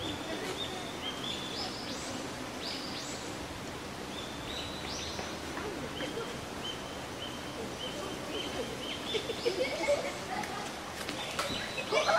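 A songbird singing outdoors: phrases of short, clear whistled notes that step upward in pitch, repeated every second or two, over a steady background hiss. A few brief, closer and lower sounds come about nine to ten seconds in.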